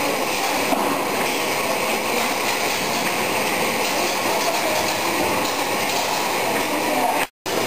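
Aweta-Autoline Pentacup electronic tomato grading line running: a steady mechanical rattle of the conveyor and sorting cups carrying tomatoes. The sound cuts out for a moment near the end.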